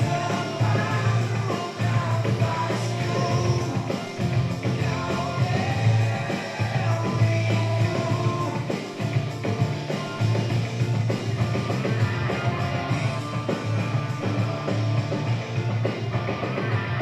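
Rock band playing live, with singing over a heavy, steady bass line.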